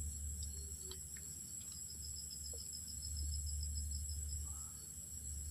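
Crickets chirring steadily in night grassland. For a couple of seconds in the middle, a rapid pulsed insect trill joins in, over a low steady hum.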